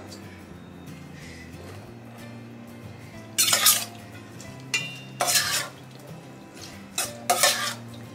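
Metal ladle scraping and clanking against a stainless steel pot as glass noodles are tossed, in five ringing bursts starting about three seconds in. Soft background music runs underneath.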